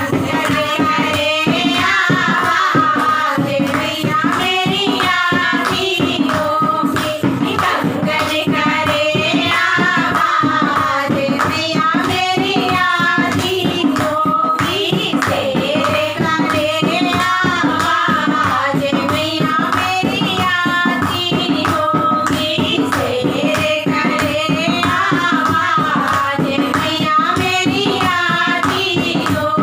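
Women's voices singing a Hindi devotional folk song to the goddess Durga (Devi geet bhajan) together, over steady rhythmic hand-clapping.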